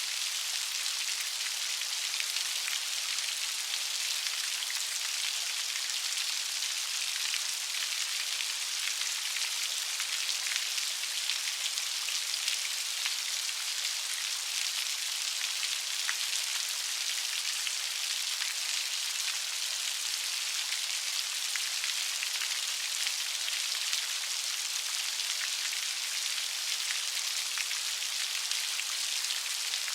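Light rain falling steadily, an even hiss made up of many fine drop patters, with no thunder.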